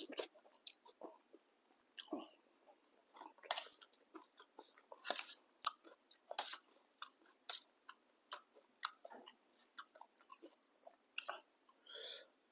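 A person eating a bowl of boat noodle soup close to the microphone: irregular wet chewing and mouth sounds, with a slightly longer burst near the end.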